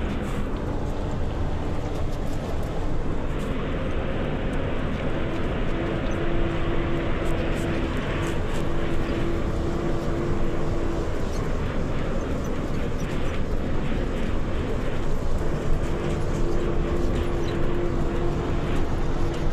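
Isuzu FVZ truck's diesel engine running steadily under load on a rough hill track. A steady whine rises above the engine twice, about a third of the way in and again near the end.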